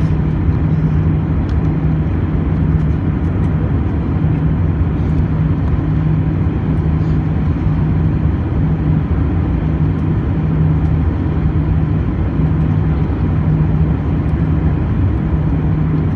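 Airbus A319 cabin noise: a steady drone of the jet engines and airflow, with a low hum that swells and fades every second or two.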